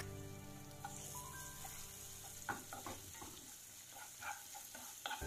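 Chopped tomato being stirred with a wooden spatula into onions frying in oil in a nonstick pan. A faint sizzle runs under a few scattered scrapes and taps of the spatula against the pan.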